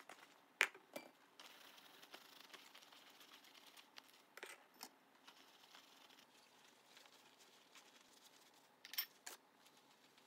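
Tableware being handled while dishes are dried and put away: a few sharp clinks and knocks of ceramic bowls and a glass jar, in three pairs, the loudest about half a second in, over a faint hiss.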